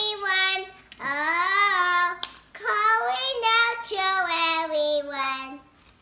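A young girl singing in phrases of long, sliding notes; the last phrase drifts downward in pitch and ends shortly before the end.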